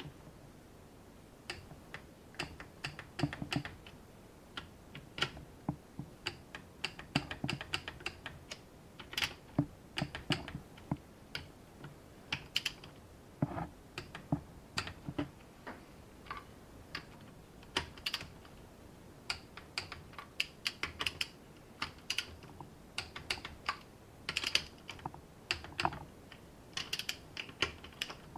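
Ratchet of a torque wrench clicking in short rapid runs, again and again, as the connecting-rod caps of an engine are tightened to torque.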